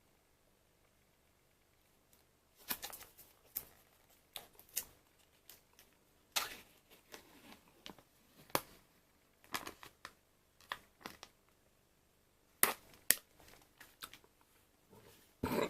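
Plastic yogurt pot with a foil lid being handled and opened: irregular sharp clicks and crinkles, two crisp snaps about three-quarters of the way through, and a louder crinkle at the end.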